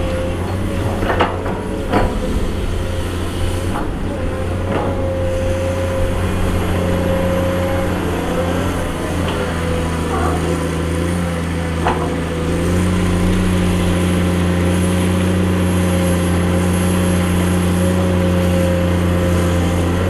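Komatsu PC210 hydraulic excavator's diesel engine running under steady load with a constant higher whine over it, punctuated by several sharp knocks. About two-thirds of the way in the engine note steps up and gets a little louder.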